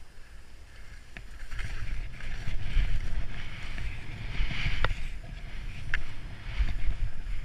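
Skis hissing through snow on a fast downhill run, with wind buffeting the action camera's microphone as a deep rumble; it grows louder after the first second or so. Two sharp clicks about a second apart near the middle.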